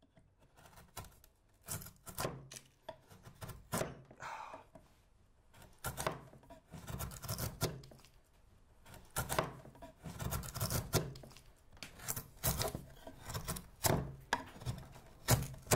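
Wood being carved with a hand chisel: a run of irregular sharp cuts and scraping strokes.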